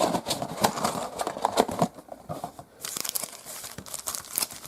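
Plastic trading-card pack wrappers crinkling and rustling as the packs are handled and pulled from the box. There is a quieter pause about two seconds in.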